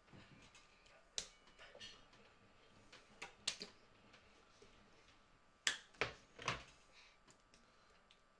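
Quiet room with a handful of sharp taps and slaps from hands during signing and from handling a small whiteboard. The loudest are three close together about six seconds in.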